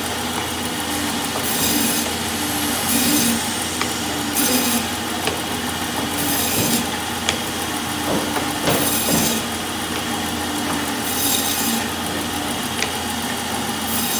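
Meat band saw running steadily with a motor hum while its blade slices through a log of chilled ground beef, a hissing rasp rising with each patty cut, about every one to two seconds.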